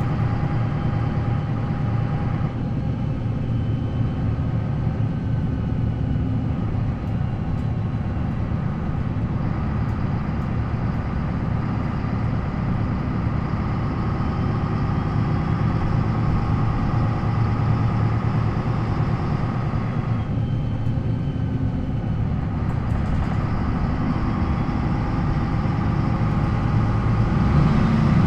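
The D28 diesel engine of an MAN NL 263 city bus with a ZF Ecomat 5-speed automatic gearbox, running steadily; its tone shifts a few times and it gets a little louder near the end.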